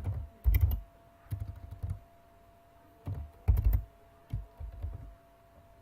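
Typing on a computer keyboard in several short, irregular bursts of keystrokes, with a faint steady hum underneath.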